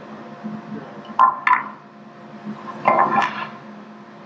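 Block of zebra wood knocked and set down on a jointer's metal table and fence: two sharp clinks about a second in, then a longer clattering knock around three seconds, over a steady low hum.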